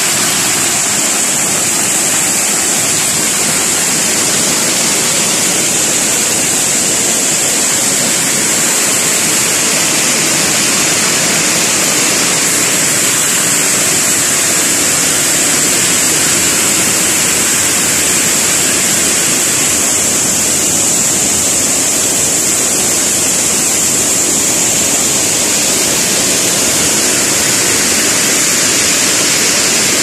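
Small waterfall pouring over a rock ledge into a foaming plunge pool: a loud, steady rush of falling water.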